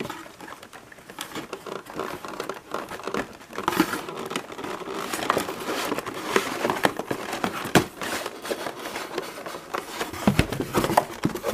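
Clear plastic clamshell packs crinkling and scraping against each other and the cardboard box as they are worked out of it by hand, with many sharp clicks; the handling grows busier about four seconds in.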